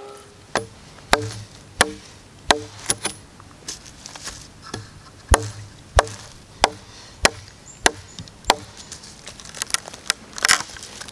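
Large knife chopping a notch into a dead log: sharp strikes of the blade biting into the wood, about one and a half a second, with a louder flurry near the end.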